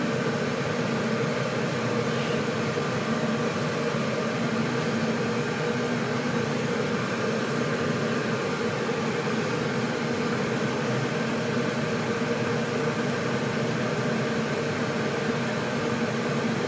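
Steady hum of a fiber laser marking machine's cooling fans running between jobs, with no marking under way.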